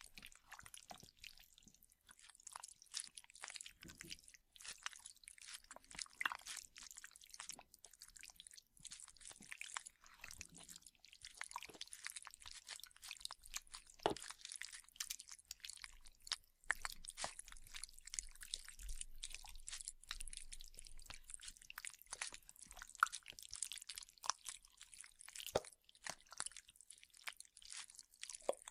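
Wet chewing and biting sounds performed as a zombie flesh-eating sound effect: a continuous run of small wet clicks and smacks.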